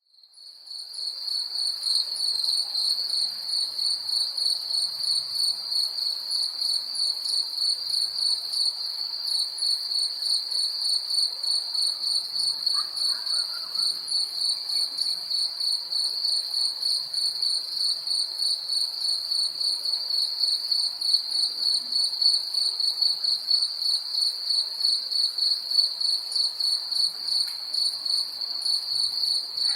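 Cricket chirping: a steady, high-pitched trill pulsing in quick, even beats, fading in over the first second.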